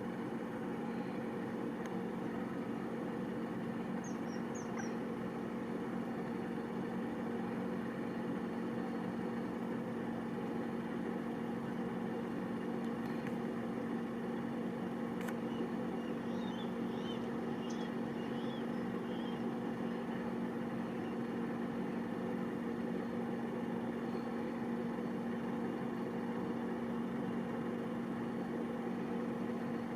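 A steady low mechanical hum, like a motor running at an even speed, with faint high bird chirps around four seconds in and again between about sixteen and nineteen seconds.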